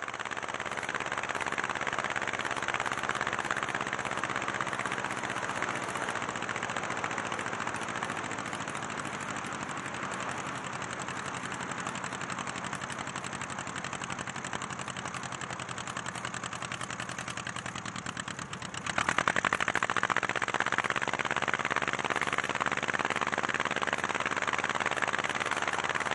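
Light aircraft's piston engine and propeller running with air rushing past, heard from outside beside the cowling; the engine runs steadily at reduced power, then about nineteen seconds in it goes up to full power and grows clearly louder, as full power is added in power-on stall practice.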